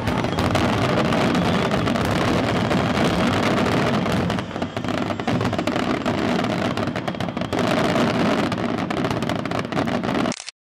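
Fireworks display: aerial shells bursting in a dense barrage of overlapping bangs and crackle, thinning briefly about four seconds in, then cutting off suddenly near the end.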